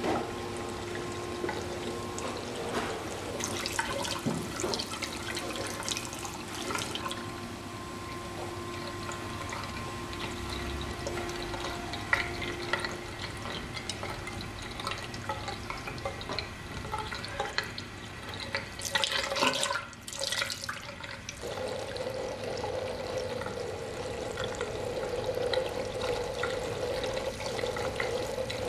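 Water running steadily from a bathroom tap into the sink, with a brief louder splash about two-thirds of the way through, after which the running water sounds fuller.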